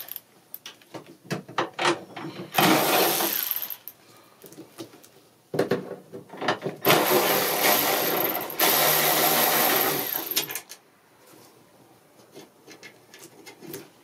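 Cordless ratchet running as it backs out two bolts from sheet metal. There is a short run about three seconds in, then a longer run of about five seconds, with scattered clicks and knocks of the tool against metal in between.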